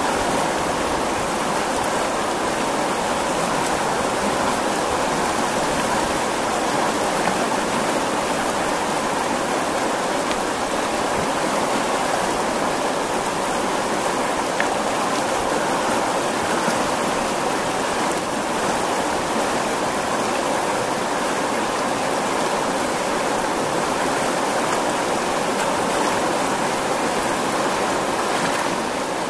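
Botan River flowing fast in choppy rapids past rocks at the bank: a steady, unbroken rush of moving water.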